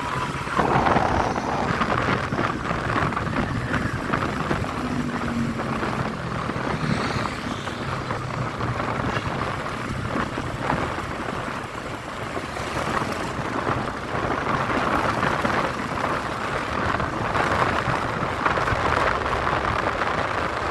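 Steady city road traffic on rain-wet streets: a continuous hiss with a low rumble underneath.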